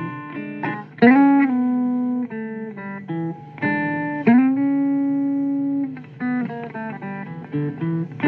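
Guitar playing a blues lick: single plucked notes, two of them bent upward and held for about a second and a half each, with quicker short notes between.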